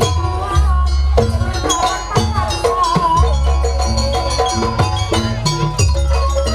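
Live Banyuwangi jaranan ensemble music accompanying a barong dance: steady drumming and deep gong-like strokes, with a wavering melodic line on top.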